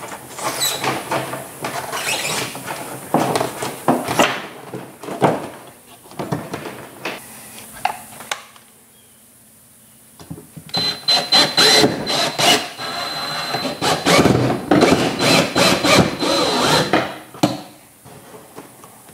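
Cordless drill pre-drilling screw holes through a small switch panel into the side of a boat, running in repeated bursts. After a short pause about halfway through, a longer run carries a steady high whine.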